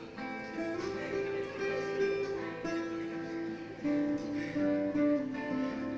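Live band playing a slow instrumental passage of held, sustained notes.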